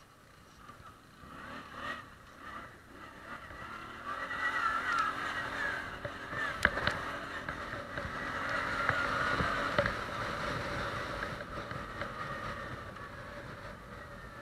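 ATV (quad bike) engine running under load on a dirt track. It gets louder about four seconds in and eases off near the end, with a couple of sharp knocks along the way.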